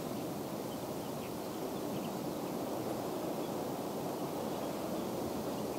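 Steady outdoor rushing noise, even in level, with a few faint high chirps about one and two seconds in.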